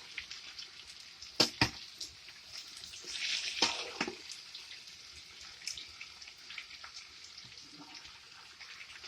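Steak frying with a steady sizzle, broken by a couple of sharp utensil clicks about a second and a half in and a louder scraping swell around the middle.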